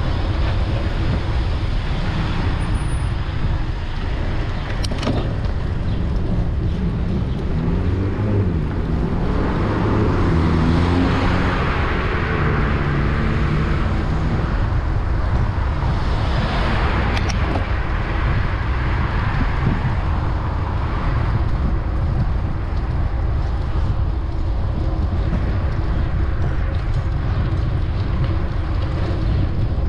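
Street traffic with cars passing, over a steady low rumble. One vehicle's engine rises and falls in pitch from about eight to fifteen seconds in, and another vehicle goes by a few seconds later.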